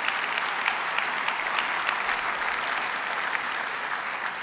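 Sustained applause from a large seated audience in a big hall, easing off near the end.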